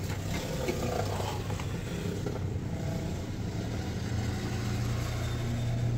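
Steady low electrical hum with a faint hiss from running workbench equipment while a replacement IC is soldered onto a receiver's circuit board.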